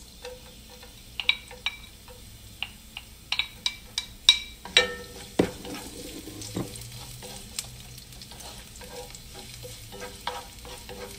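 Chopped garlic sizzling in hot olive oil in a nonstick frying pan while it is stirred with a wooden spatula. In the first five seconds a utensil clicks and taps sharply against the plate and pan as the garlic is scraped in.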